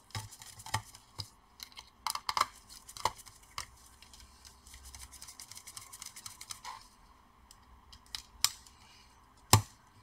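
Sparse small metal and plastic clicks and light scrapes as a laptop's copper heatsink is handled into place and its small screws are tightened, with two sharper clicks near the end.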